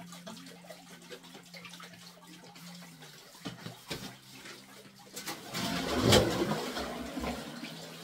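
Spring water running from a hose. It is faint at first, then splashes noticeably louder from about five seconds in.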